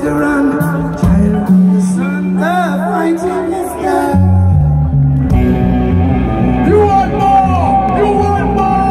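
Live band music with singing: a held bass note under wavering vocal runs, then a steady beat and moving bass line from about five seconds in.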